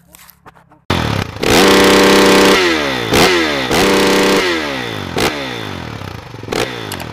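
Motorcycle engine revving hard, starting suddenly about a second in: held high twice, each time falling away in a long dropping whine, with short blips of the throttle after.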